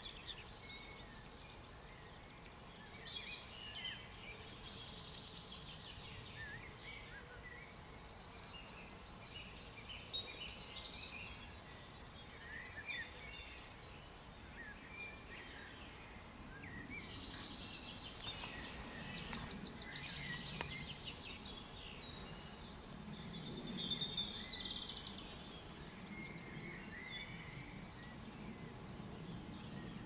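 Several songbirds singing at once: overlapping chirps, short whistled phrases and rapid trills, busiest just past the middle.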